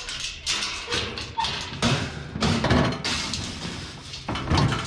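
Bicycles being handled and loaded, giving a run of irregular metal clatters, knocks and scrapes of the frames and parts against each other.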